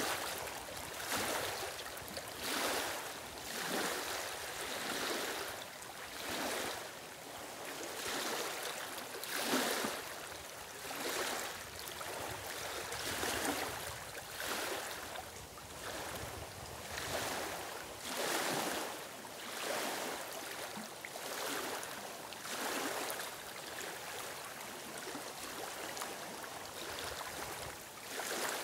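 Small lake waves lapping onto a stony shore among reeds, each wave washing in and draining back in a steady rhythm about every second or so.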